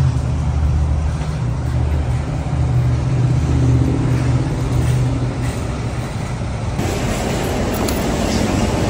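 Low, steady rumble of a car running, heard from inside the cabin. About seven seconds in, it gives way abruptly to a louder, even rushing noise.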